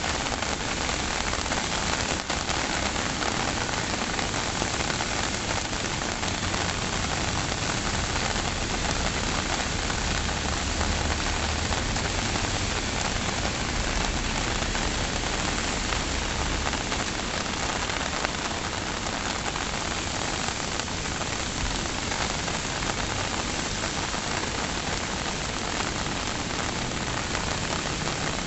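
Steady heavy rain falling, a dense even hiss of drops on surfaces with no letup.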